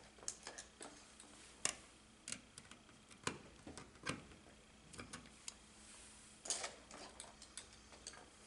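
Irregular sharp clicks and light scrapes of pliers and a copper ground wire against a metal electrical box while the wire is shaped to go around the ground screw.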